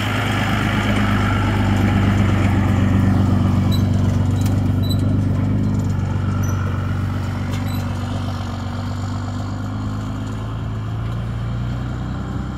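Pickup truck engine running steadily as it pulls away towing a trailer loaded with a mini excavator, slowly fading with distance. A few light clanks sound partway through.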